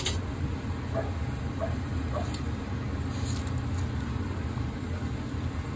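Pot of water at a rolling boil on the stove: a steady low rumble with a few faint bubbling pops.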